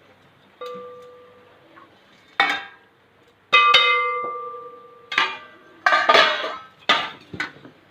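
A metal kitchen vessel clinking and ringing, struck about eight times. Each strike leaves a ringing tone that fades over about a second. The loudest strike is about halfway through, and the strikes come faster near the end.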